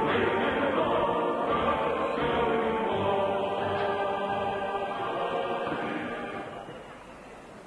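A choir singing with musical accompaniment, many voices holding long notes, fading out about six seconds in.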